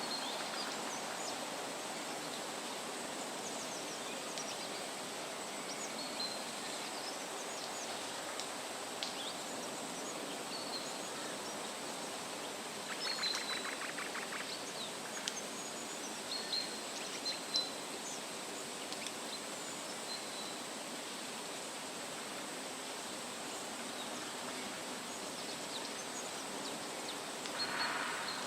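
Forest ambience: a steady rushing background noise with scattered short bird chirps, a rapid trill about halfway through and another brief burst near the end.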